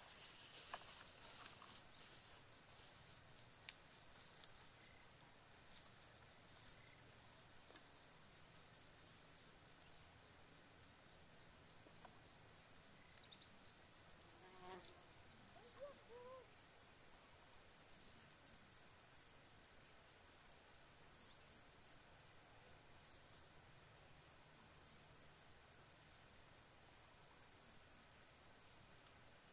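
Faint insects chirping in grass: short high chirps repeating irregularly over a steady high hiss.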